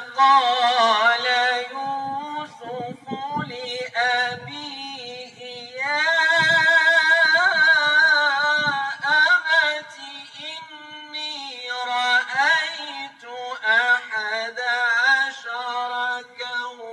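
A male reciter chanting the Quran in the melodic style, in long held phrases whose pitch wavers and ornaments on each vowel, with short breaks between phrases.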